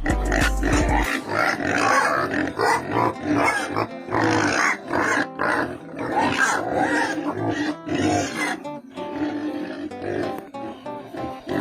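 Pigs grunting, with steady background music.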